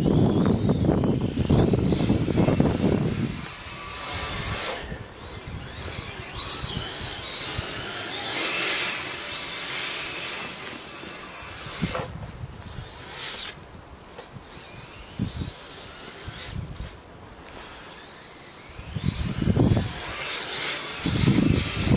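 Brushless electric motors of an RC snowcat whining as it drives, the pitch rising and falling with the throttle. A loud low rushing noise covers the first few seconds and returns near the end.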